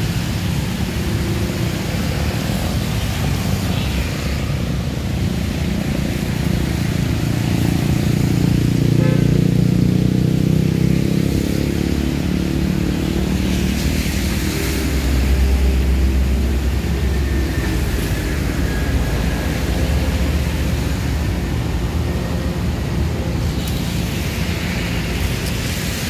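Road traffic of cars and motorcycles passing on a rain-wet road, a steady rumble with tyre hiss. The rumble swells as vehicles go by about ten and fifteen seconds in.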